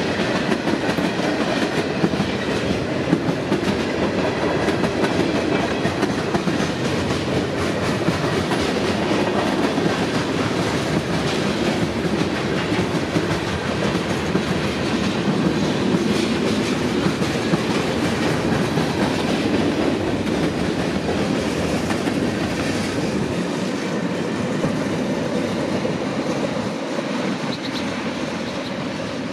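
Long mixed freight train of tank cars, boxcars and covered hoppers rolling past close by: a steady rumble of steel wheels on the rails with many repeated clicks. The sound eases off a little near the end.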